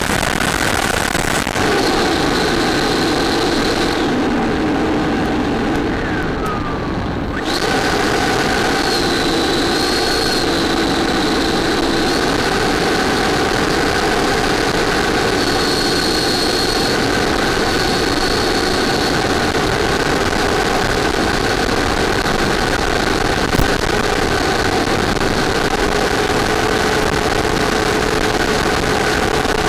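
RC model airplane in flight, heard through its onboard camera: a steady rush of air and motor noise with a whine that wanders in pitch. About four seconds in the hiss thins and a tone slides down for a few seconds, then the full noise returns.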